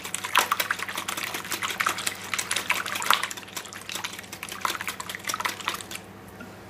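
Wire whisk beating a runny mix of eggs, milk and melted butter in a ceramic bowl: quick clicking, sloshing strokes that stop about six seconds in.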